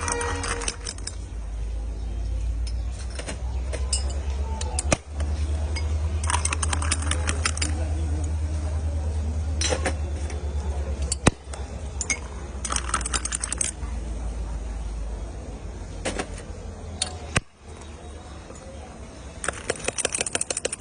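Metal cooking utensils clinking and rattling in short bursts of rapid strikes, four bursts a few seconds apart with a few single clinks between, over a steady low rumble.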